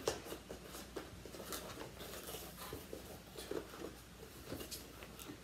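Cardboard keyboard box being opened and handled: irregular scrapes, rustles and light taps of the cardboard.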